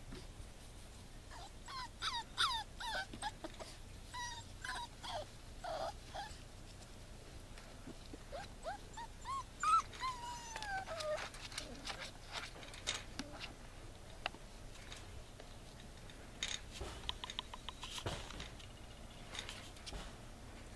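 Young puppies whimpering and yipping in short high cries, with one longer whine falling in pitch about ten seconds in. Light clicks and taps follow near the end.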